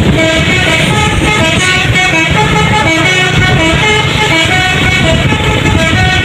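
Tour bus's multi-tone musical horn playing a quick tune of short stepping notes, over a steady rumble of engine and traffic.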